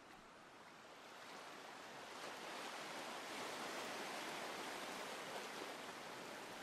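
Steady rush of sea water around a boat, swelling over the first few seconds and then holding.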